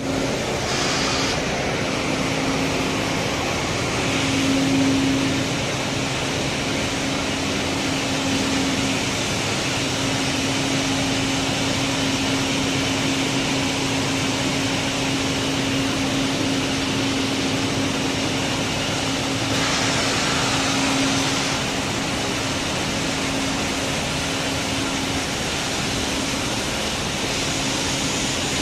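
A machine running steadily: a constant low hum under a broad, even noise, with short brighter hissing patches about a second in, around five seconds, about twenty seconds in and near the end.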